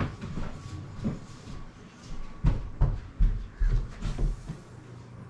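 A run of dull thumps and sharp knocks, about a dozen, the loudest clustered from about two and a half to four seconds in: a child moving about and bumping against a wooden table and chair.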